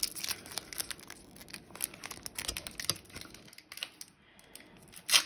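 Foil trading-card booster pack wrapper being handled and opened by hand: uneven crinkling and crackling, quieter for a moment past the middle, with one sharp loud crackle near the end.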